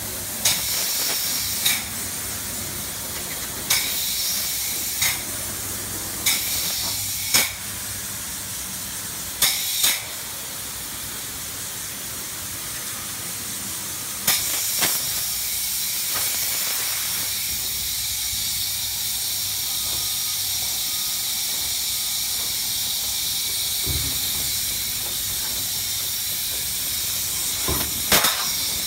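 Open-cell spray foam gun hissing as it sprays insulation. First a string of short bursts about a second or two apart, then a steady continuous spray from about halfway through, over a low steady hum.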